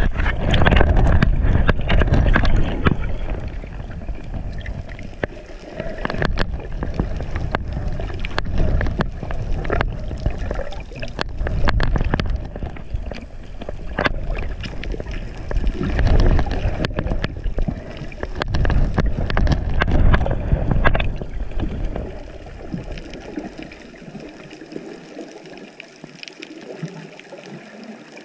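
Muffled water rushing and gurgling heard underwater through a GoPro's waterproof housing as the snorkeler swims, with scattered sharp clicks; it swells and eases in waves and grows quieter near the end.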